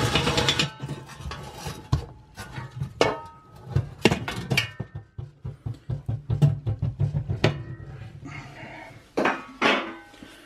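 Cordless impact driver hammering briefly, stopping within the first second. Then come scattered sharp metallic clanks and knocks, some briefly ringing, as the oven's sheet-metal fan cover is lifted out.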